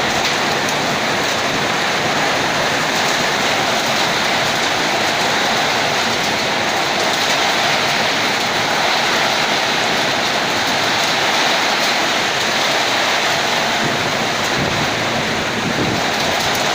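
Heavy rain pouring down in a summer storm, a loud, steady rushing hiss.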